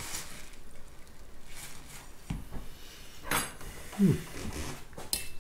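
Quiet room tone, broken about three seconds in by a short puff of breath blowing on a hot forkful of fish, then a brief low voiced hum with falling pitch.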